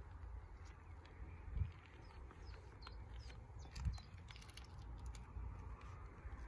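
Birds chirping over a low steady rumble, with two thumps about a second and a half and four seconds in.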